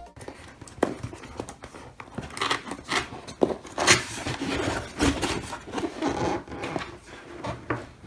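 A cardboard product box being handled and opened by hand: rubbing and scraping of cardboard with scattered small knocks and clicks.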